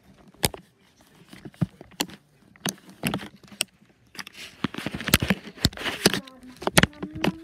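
Handling noise from a phone being carried and moved about: scattered sharp clicks and knocks, with a stretch of rustling in the second half.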